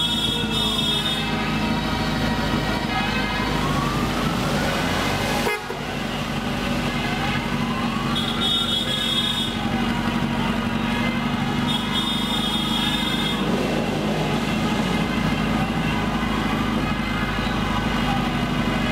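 Parade motorcycles' engines running steadily, with horns sounding for a second or two at a time, several times over. Slow rising and falling whines run through it, and there is a short dip about five and a half seconds in.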